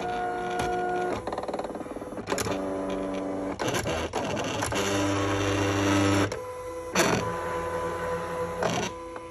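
A Protection Pro screen-protector cutting plotter starts up abruptly and runs, its motors whining in steady tones that jump to a new pitch every second or so as the carriage and rollers move the cutting mat. A few sharp clicks come through, the loudest about seven seconds in.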